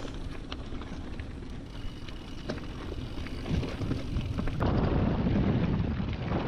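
Wind buffeting the helmet or handlebar camera's microphone as a Specialized Stumpjumper mountain bike rolls down a rocky dirt trail, with tyres crunching on gravel and scattered clicks and rattles from the bike. The rumble gets louder about two-thirds of the way in.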